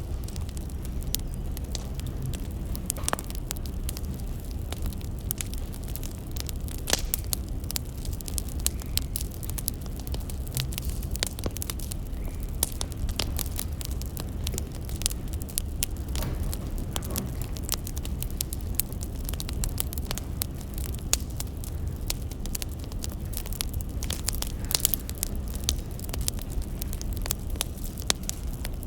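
Wood fire crackling: a steady low rumble with many sharp pops and snaps scattered through it.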